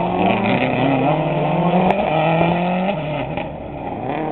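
Subaru Impreza WRC's turbocharged flat-four engine accelerating uphill between hairpins. Its pitch climbs in each gear and drops at an upshift about once a second, three times over. A sharp crack comes about two seconds in.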